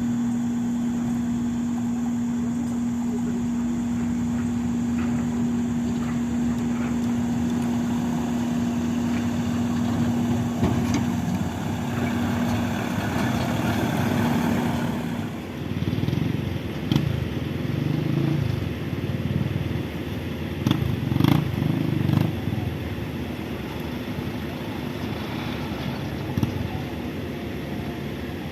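Kobelco SK200 hydraulic excavator's diesel engine running with a steady hum. About halfway through the note turns rough and uneven as the machine works, with a few sharp knocks.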